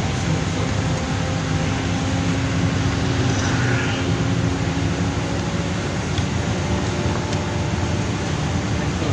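Interior of a LiAZ-5292 city bus under way: a steady engine and drivetrain hum with a few held tones, over a constant wash of tyre and road noise.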